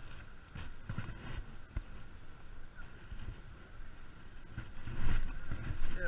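Wind rumble and handling knocks on a head-mounted action camera's microphone while a spinning rod is fished. There is a louder flurry of knocks about five seconds in, as a fish is hooked and the rod bends over.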